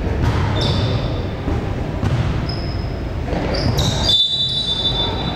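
Basketball game on a hardwood gym court: the ball bouncing and sneakers squeaking, the longest squeak about four seconds in, over the steady echoing din of the hall.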